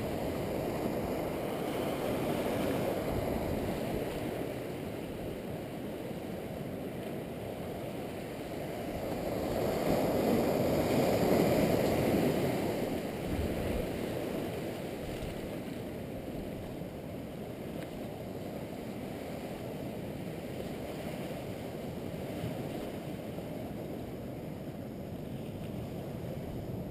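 Low rushing noise of wind and sea water washing over lava rock, swelling louder about ten seconds in.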